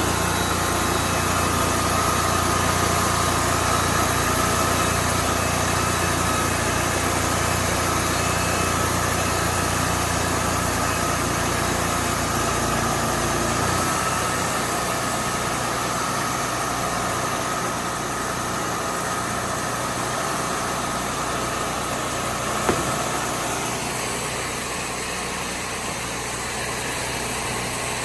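Portable sawmill's engine running steadily under a constant hiss. Its low hum drops about halfway through, and a single knock sounds near the end.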